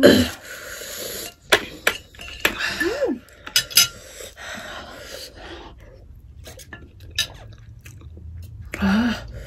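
Metal forks and spoons clinking and scraping against ceramic plates, as scattered sharp clicks.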